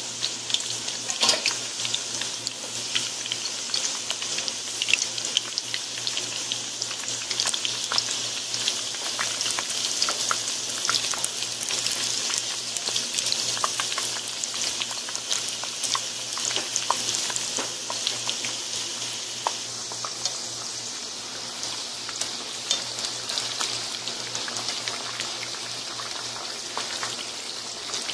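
Eggplant slices frying in hot oil in a pan: a steady sizzle with constant crackling and spitting.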